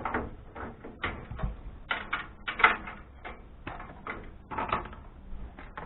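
Irregular clicks and clatters of computer parts being handled, the motherboard being worked free of the case after its screws were taken out.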